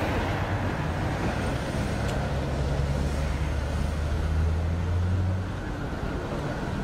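Road traffic passing a roadside speed check: a motor vehicle's low engine hum grows louder over the first five seconds, then drops away about five and a half seconds in, over a steady haze of road noise.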